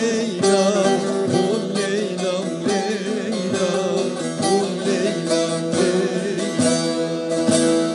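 Instrumental interlude of a Turkish folk song, led by a bağlama (long-necked saz) plucked in quick, even strokes over held notes.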